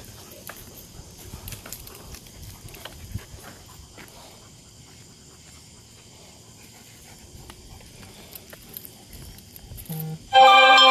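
Leashed German Shepherds and their walker moving along a paved path: faint footsteps, scuffing and small clicks. About ten seconds in, a loud steady electronic tone of several pitches sounds for about a second and cuts off abruptly.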